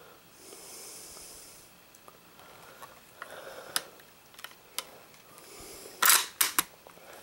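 Handling noise of a handheld camera being moved along a rifle: a soft hiss lasting about a second, a few light clicks, then a quick cluster of louder clicks and knocks about six seconds in.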